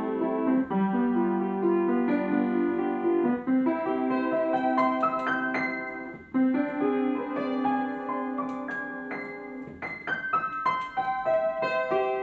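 Upright piano being played: sustained chords under a melody with quick high runs, easing off briefly about six seconds in before the next phrase.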